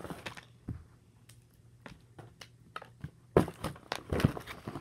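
Hands handling a toy and a cardboard box: scattered light taps and clicks, with a few louder knocks near the end.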